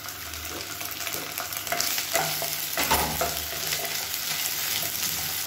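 Sliced onions and ginger-garlic paste sizzling in hot oil in a non-stick frying pan, with a wooden spatula stirring and scraping through them in short strokes. The paste is being sautéed until its raw smell goes.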